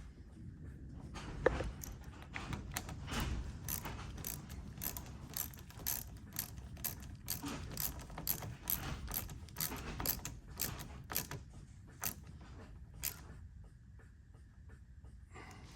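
Ratchet wrench clicking in a steady run of short strokes, tightening the negative cable's terminal clamp back onto the battery post. The clicks come roughly two to three a second and stop a couple of seconds before the end.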